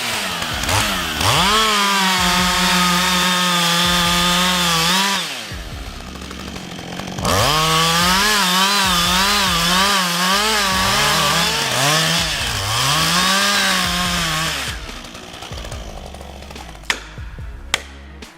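Husqvarna 562 XP two-stroke chainsaw running at high revs. About five seconds in it drops off for a couple of seconds, then comes back with its pitch wavering up and down as the chain loads and unloads in the cut. It fades out about fifteen seconds in.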